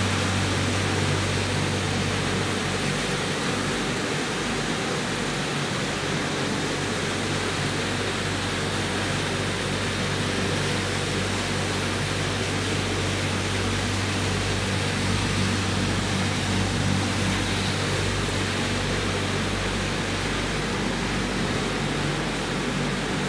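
Steady machinery din of a circuit-board recycling plant: an even rushing noise over a constant low hum, unchanging throughout.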